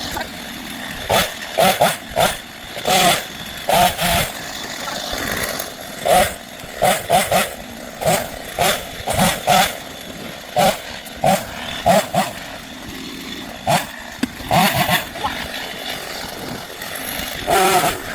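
Gas chainsaw run in many short, irregular bursts of throttle, with a steady running sound between the bursts.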